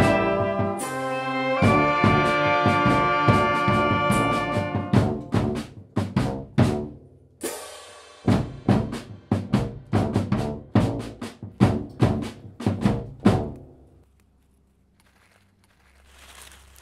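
Brass band playing: a held brass chord, then a steady marching beat on snare and bass drum that cuts off abruptly about thirteen seconds in, after which it is almost silent.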